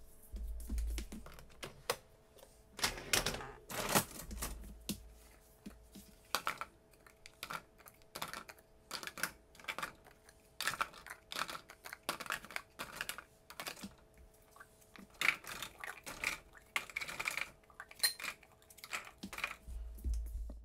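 Clear plastic food-storage containers clattering as they are set into a dishwasher's wire rack: irregular light clicks and knocks, with a few louder clusters of knocks.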